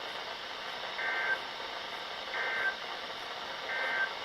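NOAA Weather Radio EAS/SAME digital data tones: three short, identical warbling bursts about a second apart over steady radio hiss. Bursts this short, repeated three times, are typical of the end-of-message code that closes an alert.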